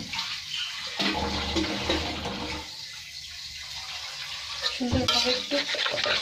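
A spatula stirring and scraping oily, masala-coated hilsa fish pieces around a kadai, in uneven wet strokes that come back stronger about a second in and again near the end.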